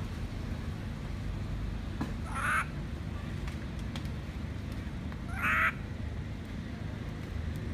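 Baby long-tailed macaque crying: two short, high cries about three seconds apart, over a steady low background rumble.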